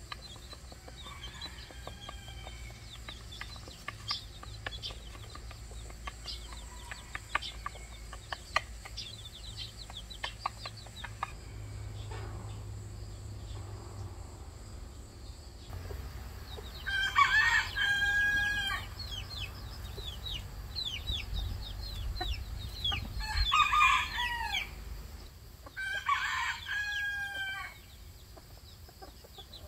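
Chicks peeping in quick high chirps, with a hen making soft clucking calls. In the second half a rooster crows three times, each crow about one and a half to two seconds long, with more peeping between crows.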